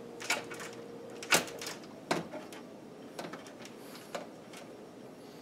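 Scattered small clicks and knocks of a water-cooling compression fitting and soft tubing being handled and twisted inside a computer case, the loudest about a second and a half in. The fitting is resisting being screwed on.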